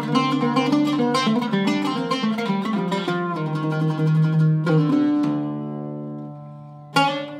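Iraqi-style Zeryab oud with a cedar soundboard played with a plectrum: a quick run of plucked notes, then a low note held on, then a chord struck about five seconds in that rings out and fades, and another struck just before the end.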